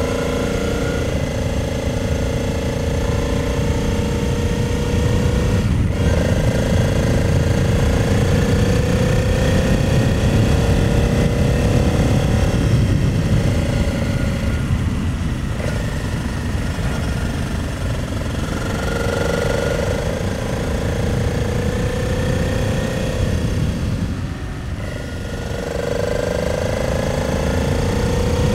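A 2009 Honda Transalp 700's V-twin engine pulling along a winding road at riding speed, with wind rushing on the microphone. The engine note climbs in long pulls and breaks off sharply about three times before picking up again.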